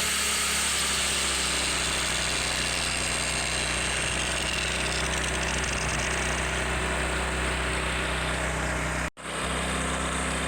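Kaladola IG2000i inverter generator's engine running steadily under load, with a 4.5-amp electric grinder spinning on its output and a high steady whine above the engine. The sound cuts out for an instant about nine seconds in.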